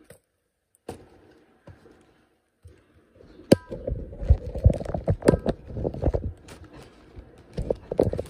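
Handling sounds of a tea box and other kitchen items knocked and set down on a wooden cutting board: a few light clicks, then a sharp click with a brief ring about three and a half seconds in, followed by a few seconds of dull knocks and two more knocks near the end.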